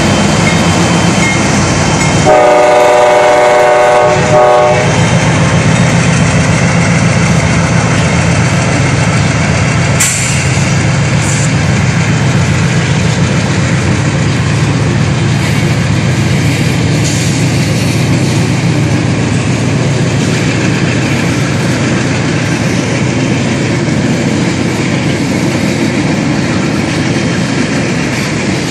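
A CSX coal train passing close by. About two seconds in, the locomotive horn sounds for roughly two and a half seconds over the rumble of the diesel locomotives. After that the coal hopper cars roll past with a steady rumble and wheel clatter, and there is one sharp clank about ten seconds in.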